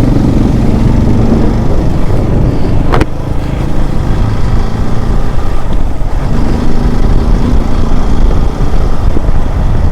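Motorcycle engine running while riding, heard with a loud low rumble on the microphone, with a sharp click about three seconds in.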